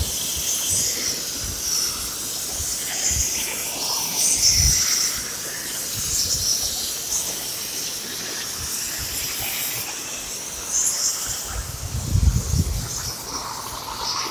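Oxy-fuel cutting torch hissing steadily as its oxygen jet bevel-cuts steel plate on a motorised circle-cutting rig. Low thumps come in now and then, loudest about twelve seconds in.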